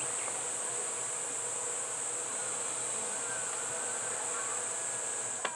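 Steady high-pitched chorus of summer insects, unbroken throughout, with one light click near the end.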